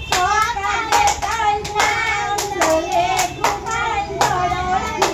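Young schoolchildren singing an action rhyme in a sing-song chant, with sharp hand claps about twice a second.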